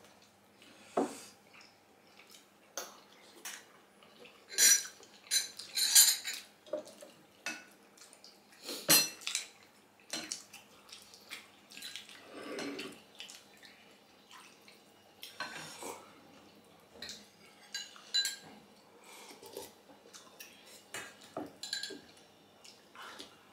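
Eating at a table: forks and ceramic spoons clinking against steel plates and ceramic bowls in scattered, irregular clicks, with soup being ladled into a bowl about halfway through.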